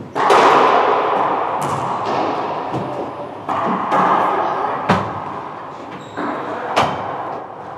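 Racquetball rally: the ball cracks sharply about six times as racquets strike it and it hits the court walls. Each hit rings on in the echo of the enclosed court, the loudest about half a second in.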